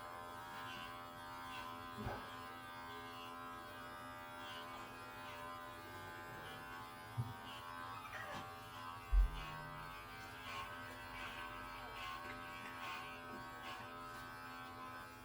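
Electric pet hair clippers running steadily with an even buzz while shaving a cat's fur. A few brief knocks come about 2, 7 and 9 seconds in.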